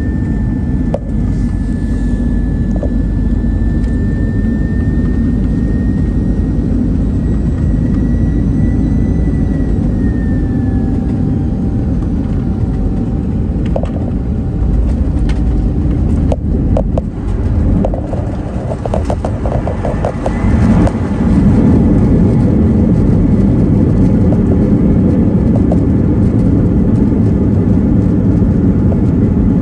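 Airbus A319 cabin noise beside the wing: a steady rumble from the jet engines with a thin high whine that slides down and fades about a third of the way in, on the approach. A few knocks come around the middle as the jet touches down, and then the rumble grows louder and stays up as it rolls along the runway.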